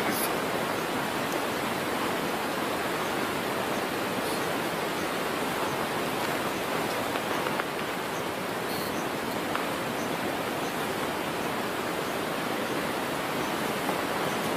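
A steady rushing noise with no pitch, even throughout, with a brief faint high-pitched ticking about nine seconds in.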